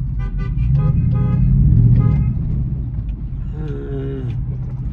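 Steady low road and engine rumble inside a moving vehicle's cabin. A man's voice makes a few brief sounds in the first two seconds and again about four seconds in.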